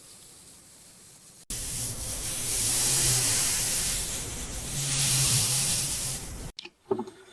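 A loud steady spraying hiss with a low hum under it. It starts suddenly about a second and a half in and cuts off sharply near the end, followed by a few light clicks.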